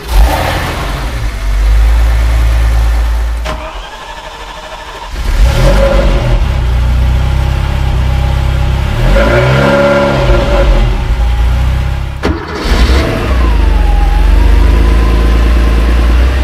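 Classic sports car engines heard loudly at their exhaust pipes, one after another. First a white car's engine runs, then a Ferrari 308 Quattrovalvole's V8 runs with one throttle blip about ten seconds in. Near the end a 1986 Porsche 911 Carrera's air-cooled flat-six comes in and revs briefly.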